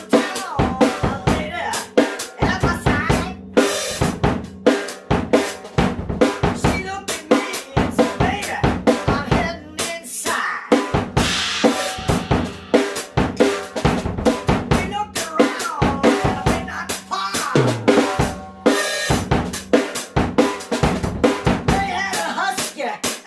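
A drum kit played in a fast, steady beat, with bass drum, snare and cymbal strikes following each other several times a second.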